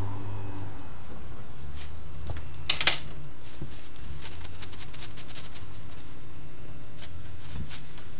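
Quick, crisp brushing strokes of a bristle neck duster swept over cut hair and skin, in two flurries, over a steady low hum. About three seconds in there is one sharp clack.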